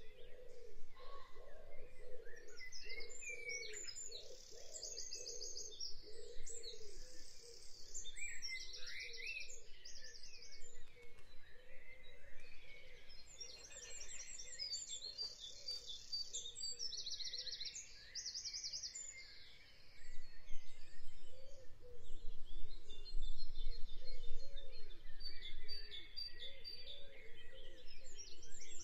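Songbirds singing, with many high, fast, repeated trills and chirps. Some low rumbling joins in during the second half.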